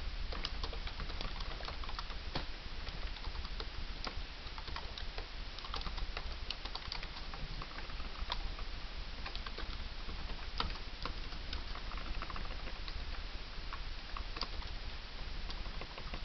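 Typing on a computer keyboard: quick, irregular key clicks with short pauses, over a steady low hum and hiss.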